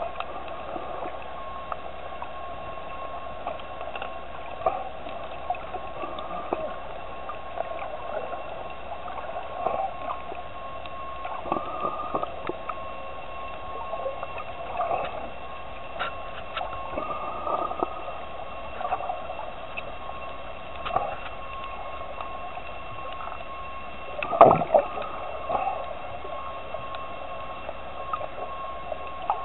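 Underwater ambience: a steady hum with irregular short gurgles and clicks scattered through it, and one louder gurgle about 24 seconds in.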